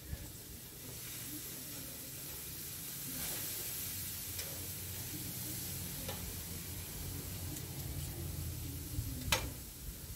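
Marinated steaks sizzling on a barbecue grill: a steady hiss, with a few light clicks and one sharp click about nine seconds in.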